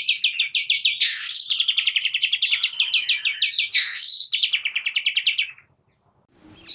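Long-tailed shrike (cendet) singing a fast chattering run of repeated notes, about ten a second, broken twice by harsh rasping bursts. The run stops shortly before the end, and a falling whistled note starts a new phrase right at the close.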